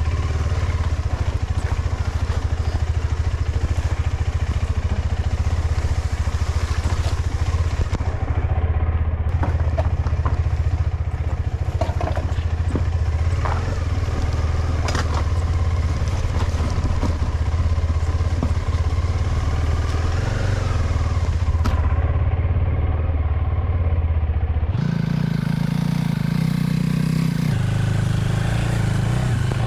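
KTM 390 Adventure's single-cylinder engine running steadily at low revs during off-road riding, with scattered knocks and clatter from the bike. About 25 s in the engine note jumps up sharply, then eases part way back down a couple of seconds later.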